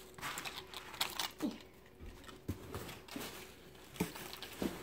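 Paper wrapping and packaging rustling and crinkling as it is handled and unwrapped, with several light clicks and taps.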